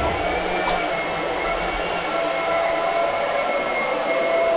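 Small electric pump running steadily as it drains a water heater through a hose, a continuous motor whine with a couple of faint steady tones over it.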